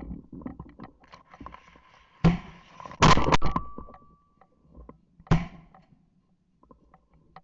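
A few sharp knocks and thumps: one about two seconds in, a quick cluster of three or four about a second later, and another near the end, with a brief thin high tone after the cluster.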